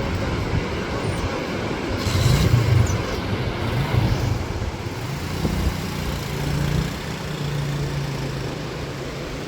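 Motor vehicle running over a steady rush of noise, its low engine hum rising and falling in pitch for a few seconds and then holding steady.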